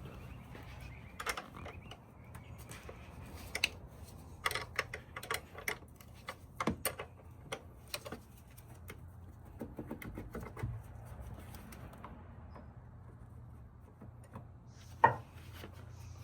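Irregular light clicks and taps of hand tools and plastic parts being handled, with one sharper knock near the end, over a low steady hum.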